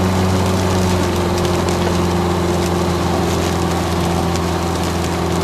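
Steady drone of a Peugeot 504's engine at an even cruising speed, heard inside the cabin, over a constant hiss of tyres on the rain-soaked road.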